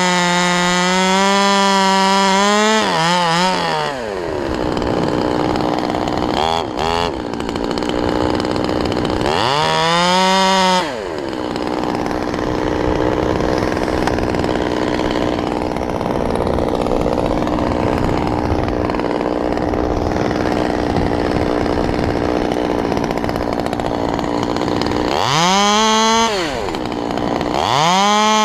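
Stihl 200T two-stroke top-handle chainsaw running at full throttle in a cut for the first few seconds, then dropping to idle for most of the rest. It is revved briefly a few times and goes back to full throttle at the very end.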